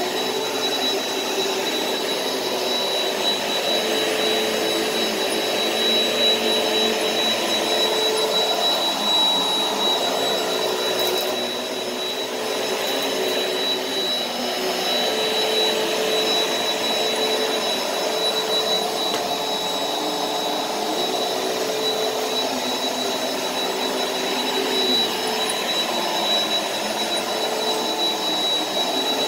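Upright bagless vacuum cleaner running steadily on carpet: a constant high motor whine over rushing airflow, the sound swelling and easing a little as it is pushed back and forth.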